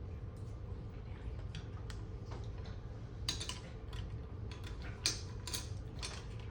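Eating mussels and shrimp close to the microphone: a scatter of small clicks and crackles, strongest a little past the middle, over a steady low hum.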